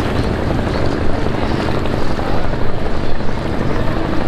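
Small putt-putt boat engines chugging steadily as a fleet of small wooden motorboats runs past close by.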